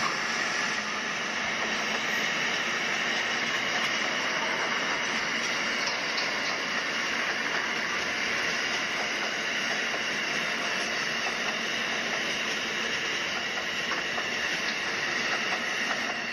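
LEGO trains running on plastic LEGO track: a steady whirring hiss from the battery motors and wheels, with a few faint ticks.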